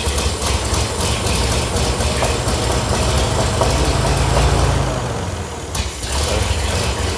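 The 1927 American LaFrance pumper's engine running on a fresh start, its sound building up to about four and a half seconds in, sagging briefly, then picking back up.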